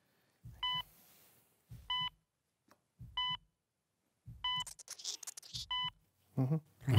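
Heart monitor sound effect beeping steadily, one short high beep about every 1.2 seconds, each with a soft low thump beneath it.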